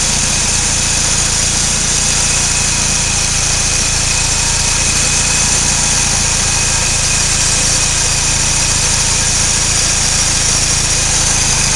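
Mini Cooper S's supercharged 1.6-litre four-cylinder engine idling steadily with a new serpentine drive belt fitted: running smooth, with no belt noise.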